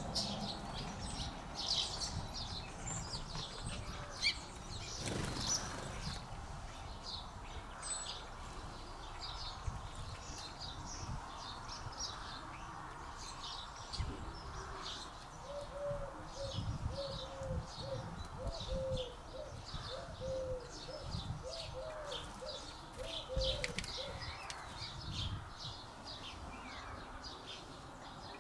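Garden birds chirping, many short high chirps one after another, with a run of short, low, repeated call notes from about halfway to near the end.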